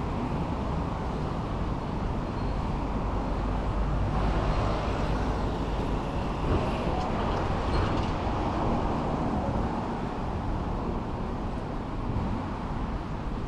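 Road traffic passing on a city street: a steady rumble of cars that swells about four seconds in and eases again after about nine seconds.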